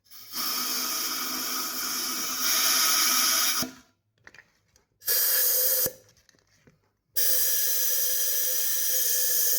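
Compressed air hissing from an air blow gun in three blasts: a long one of about three seconds, a short one of under a second, then another long one near the end. The air is blown into the cylinder heads, with fuel in the combustion chambers, to check the valves for leaks, and the heads are leaking.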